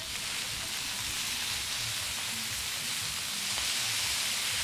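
Steady sizzling hiss of mutura, Kenyan stuffed-intestine sausage, grilling over a charcoal fire.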